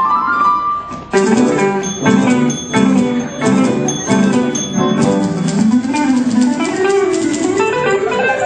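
Instrumental ensemble playing an upbeat piece. A held chord breaks off about a second in, short punchy chords repeat for a few seconds, then a low melodic line winds up and down.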